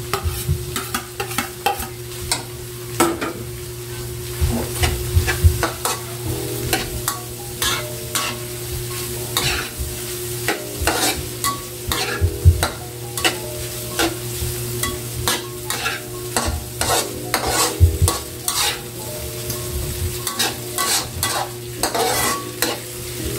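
Metal spatula scraping and clinking irregularly against an aluminium wok as egg, carrot and ham are stir-fried, with a light sizzle of frying underneath and a steady low hum.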